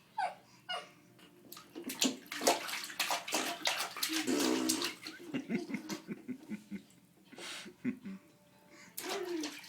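Baby blowing wet raspberries against a forearm: sputtering, fart-like lip noises in bursts from about a second and a half in to five seconds, and again near the end, with a brief vocal note in the middle of the first burst.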